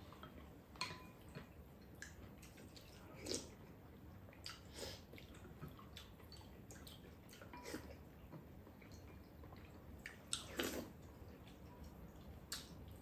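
Quiet eating at a table: chopsticks and spoons clicking against ceramic bowls, with a few louder brief mouth sounds of eating about three, five and eleven seconds in, over a low steady background hiss.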